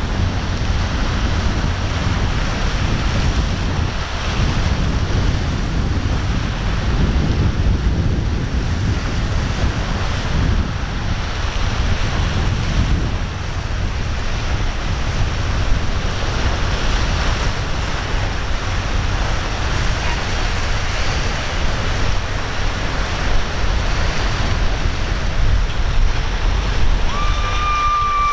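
Wind buffeting the microphone over the rushing wash of breaking waves and choppy water. Near the end a short, shrill held tone sounds once.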